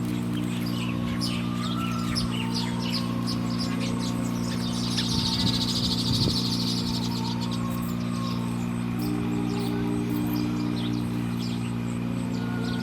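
Small birds chirping in quick repeated short notes, with a buzzy trill about five seconds in, over a steady low droning background music.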